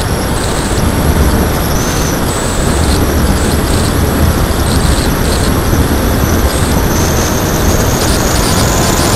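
Wind rushing and buffeting over an onboard action camera on an RC plane in flight, with the high whine of its brushless electric motor and propeller stepping up and down in pitch.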